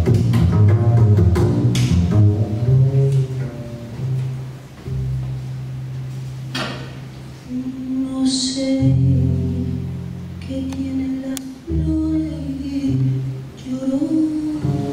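Double bass playing, busy low notes at first and then long held low notes. A woman's singing voice comes in about halfway, holding long notes over the bass.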